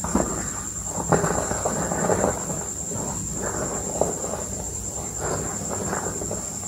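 Bare hands crushing and crumbling reformed gym chalk blocks in loose chalk powder: a continuous crunching and crackling, with sharp snaps just after the start, about a second in, at about two seconds and at about four seconds.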